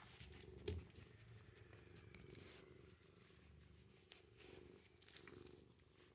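Ginger tabby kitten purring faintly and steadily while being petted, with a short rustle about five seconds in.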